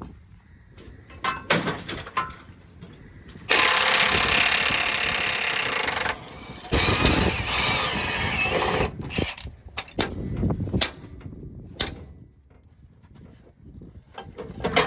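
Cordless power tool run in two bursts of a few seconds each, with scattered sharp metal clanks and knocks between them.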